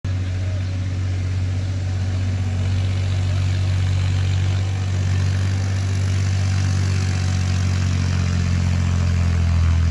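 Tractor engine running steadily at a constant speed with a deep, even hum.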